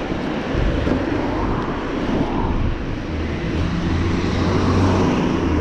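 Wind rushing over the microphone of a camera moving along a street, with a steady, uneven low rumble of travel and road noise.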